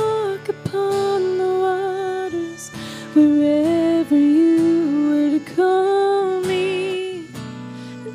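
Worship band music. A single melody line of long held notes, sliding between pitches, plays over sustained lower chords, with no words sung.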